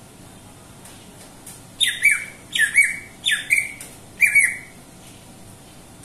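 Caged green leafbird (cucak ijo) giving four loud, harsh calls about three-quarters of a second apart, starting about two seconds in. Each call drops sharply in pitch.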